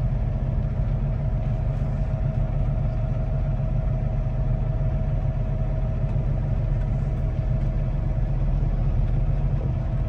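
Truck engine idling, a steady low drone heard from inside the cab, with a faint steady whine above it.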